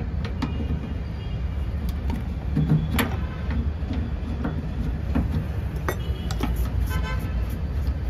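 Adjustable wrench clicking against the brass service valve fittings of a split air conditioner's outdoor unit as a fitting is worked open, with several short sharp clicks, over a steady low rumble. The pump-down is complete and no pressure is left in the line.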